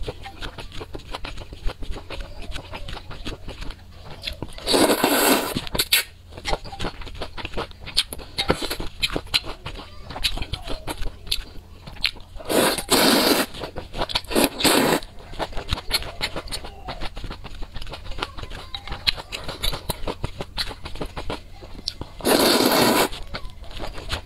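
Close-miked eating of a spicy noodle soup: continual wet chewing and mouth clicks, broken four times by loud slurps of noodles and broth, each about a second long.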